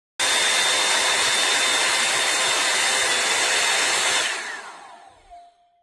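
Revlon One-Step Volumizer hot-air brush running, a loud rush of air with a steady high whine. About four seconds in it is switched off, and the whine falls in pitch as the fan motor spins down to a stop.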